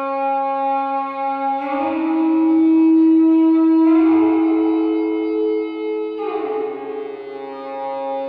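Background music: sustained held chords that change about every two seconds.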